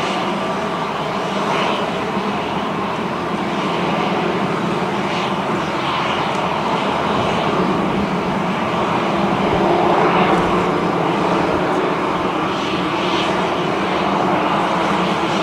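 Jet airliner engines running steadily at idle, an even roar with a faint steady hum underneath, swelling slightly about ten seconds in.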